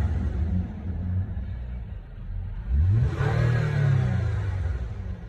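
2005 Toyota Avalon's 3.5-litre V6 being revved. The revs fall back toward idle, then a second quick rev about three seconds in rises sharply and slowly dies away.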